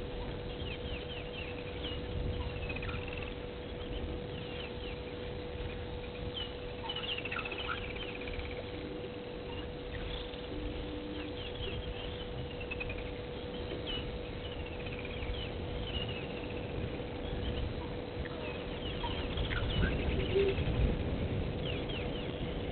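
Wild birds calling again and again: short descending whistles and chirps. Under them run a steady faint hum and a low rumble that grows louder near the end.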